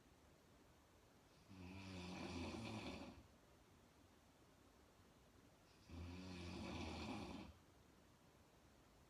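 A woman snoring in her sleep: two long, pitched snores about four seconds apart, each lasting about a second and a half.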